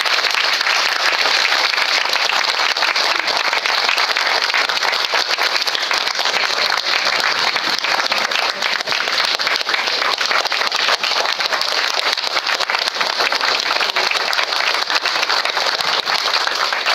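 Audience applauding: dense, steady clapping from a room full of people, loud throughout.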